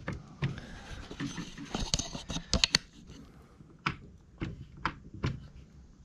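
Plastic housing of a cordless drain auger being handled and pressed together by hand: a run of plastic clicks and knocks, bunched about two seconds in, then four sharp separate clicks about half a second apart.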